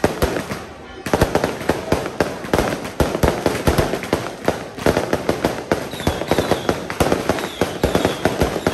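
Strings of firecrackers going off in a dense, continuous run of sharp cracks, growing louder and thicker about a second in.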